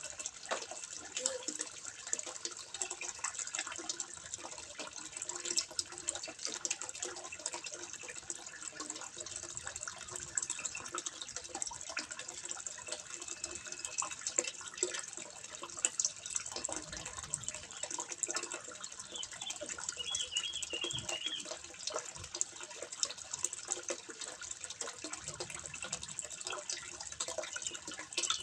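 Water trickling and splashing steadily into a fish pond, with many small irregular drips and splashes.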